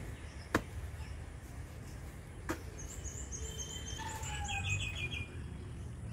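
A hoe chopping into wet, muddy soil: two sharp strikes about two seconds apart. After the second strike a bird calls in the background with quick, high, repeated chirps and a short falling note.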